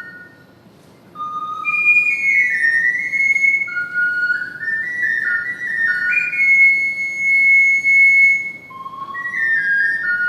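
Triple ocarina playing a slow melody in clear, pure tones. After a short pause near the start, it moves in steps between notes, holds one long high note about six seconds in, and starts a new phrase near the end.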